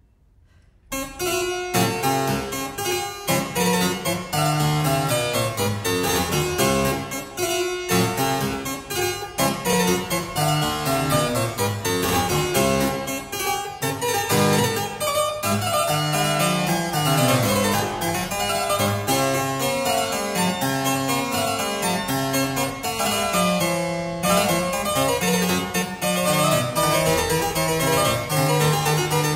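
Background instrumental music with many quick, changing notes, starting about a second in.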